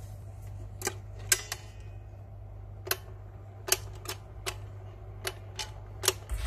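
Stylus running in the lead-in groove of a shellac 78 rpm record on a record changer: sharp clicks recurring about every three-quarters of a second over a steady low hum.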